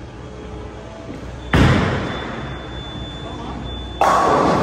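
Bowling ball crashing into the pins about a second and a half in, the clatter dying away over a couple of seconds, followed near the end by a second loud crash.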